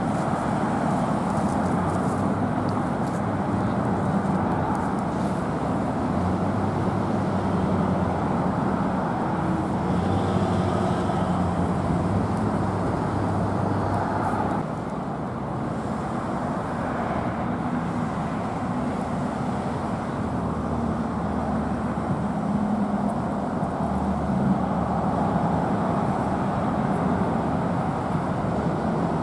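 Road traffic noise: vehicles passing on the road over a steady low engine hum. The noise drops a little about halfway through.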